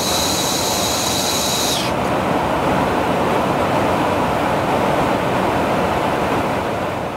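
Steady rushing of airflow and engine noise inside the boom operator's pod of a KC-135R Stratotanker in flight. A high whine on top of it stops about two seconds in, and the noise starts to fade near the end.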